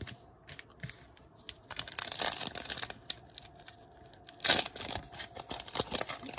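Sealed plastic trading-card pack wrapper crinkling in the hands as it is worked and torn open, with a loud crackle about four and a half seconds in.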